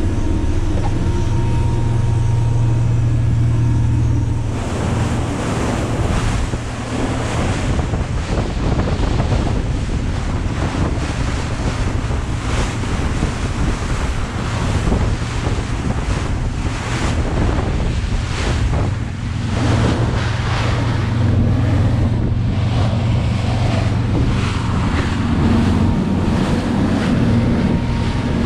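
Motorboat running at speed. At first, the engine's steady low drone is heard from inside the wheelhouse. About four seconds in, the sound switches to gusty wind buffeting the microphone and the rush of water and spray along the hull, with the engine drone underneath.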